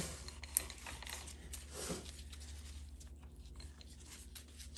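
Faint handling noises as gloved hands turn and press a Ford 4R100 transmission's forward drum assembly down into the direct drum: soft glove rustles and a few light metal ticks as the splines seat, over a low steady hum.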